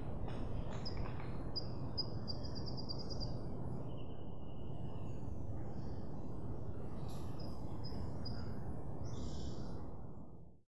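Outdoor field ambience: a steady low rush of background noise with small birds chirping over it, including a quick trill about two seconds in and a short whistled note about four seconds in. The sound fades out quickly near the end.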